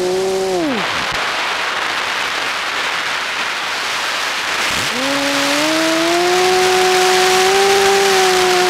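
Onboard sound of an FPV model plane: the motor and propeller hum winds down to nothing as the throttle is cut in the first second, leaving only wind rushing past while it glides. Just under five seconds in, the motor spools back up with a rising whine and settles to a steady hum.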